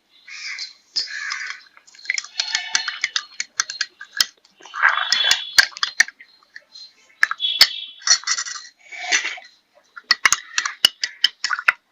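A spoon stirring honey into a herbal decoction in a small vessel: irregular sharp clinks against the vessel between stretches of scraping.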